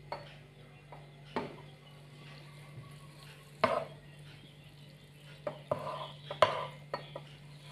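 A plastic spatula stirring flat rice noodles in a nonstick frying pan, making scattered knocks and scrapes against the pan, more often in the second half, over a steady low hum.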